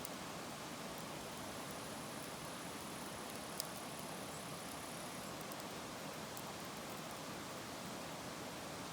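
Wood fire burning with a steady hiss and scattered small crackles, and one sharper pop about three and a half seconds in.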